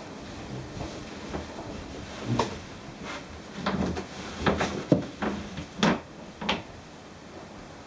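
A run of hollow knocks and bumps of hollow plastic, about a dozen over a few seconds with the loudest near the middle, as a child ducks down into a wheelie bin to hide.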